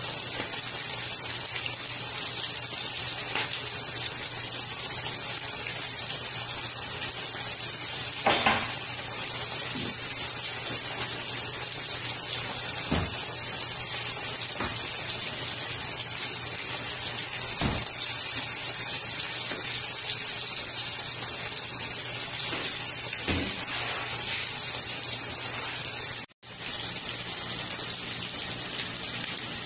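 Chicken pieces shallow-frying in hot oil in a pan: a steady sizzle with a few louder pops and crackles. The sizzle breaks off for an instant near the end.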